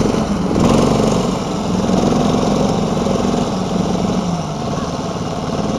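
Small engine of a homemade single-ski snowmobile running under way, its pitch dropping and fading a little in the last second or so.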